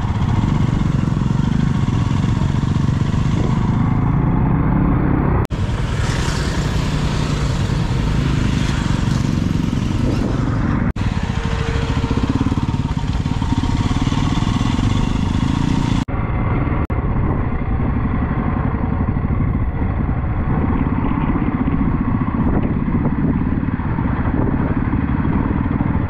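Motorcycle engine running steadily on the move, under a rushing hiss. The sound changes abruptly three times, about five, eleven and sixteen seconds in.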